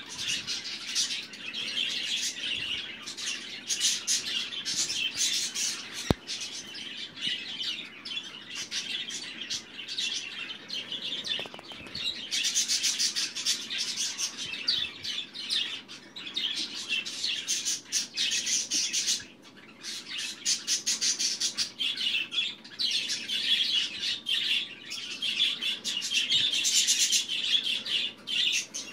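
Budgerigar chattering: a fast, continuous stream of chirps and warbles, with a short pause about two-thirds of the way through. A single sharp click about six seconds in.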